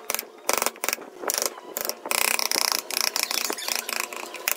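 A wooden mallet striking the handle of a wood-carving chisel as it cuts into a wooden block. Separate sharp knocks come in the first two seconds, then a fast, dense run of blows.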